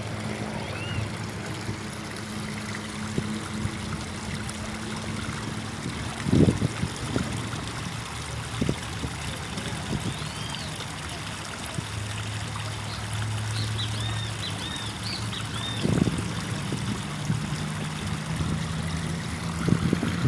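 Small stream of water trickling over rocks in a stone-lined channel.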